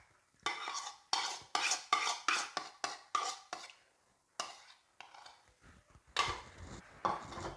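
Metal spoon scraping the inside of a bowl to empty a wet mixture into flour: a quick run of short scrapes, then a pause, one more stroke, and a longer scrape near the end.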